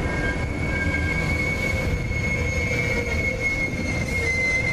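Amtrak Superliner double-deck passenger cars rolling past, their steel wheels giving a steady high-pitched squeal over a continuous low rumble of wheels on rail.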